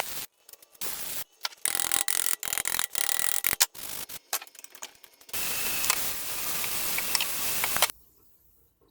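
Wood being worked with tools: short, choppy bursts of rubbing and scraping, then a steady stretch of abrasive noise starting about five seconds in that cuts off suddenly near the end.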